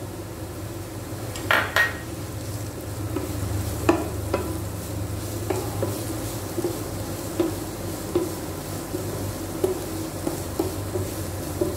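Black plastic spatula stirring grated carrot and onions in a non-stick kadhai, tapping and scraping against the pan every half-second or so over a light sizzle of butter. A sharp clack comes about a second and a half in.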